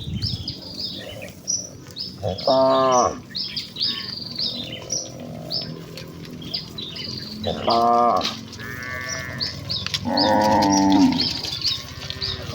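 Village cattle mooing: three loud, drawn-out moos, each about half a second to a second long, with a steady run of high chirping in the background.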